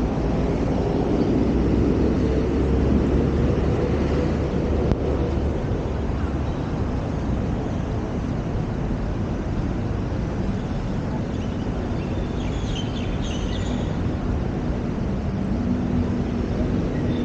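Urban street ambience of passing motor traffic: a steady low engine drone, strongest in the first few seconds, with another engine tone coming in near the end.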